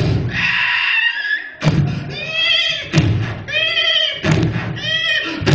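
A man's voice imitating a horse arriving: low thumps about every second and a half, each followed by a high, wavering call, after a breathy hiss near the start.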